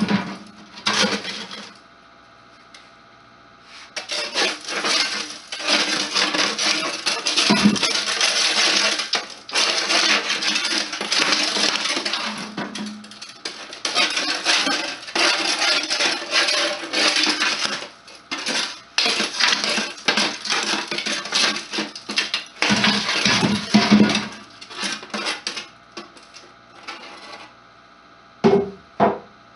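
Soot being scraped and scrubbed out of a section of black sheet-metal stove pipe over a metal ash can: long spells of rough metallic scraping with short pauses, and a few knocks of the pipe against the can.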